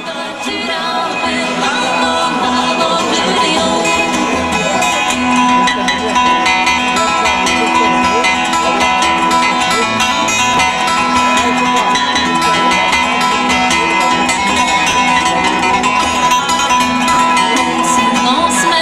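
Bluegrass band playing live: banjo, acoustic guitar, fiddle and upright bass, with steady music throughout.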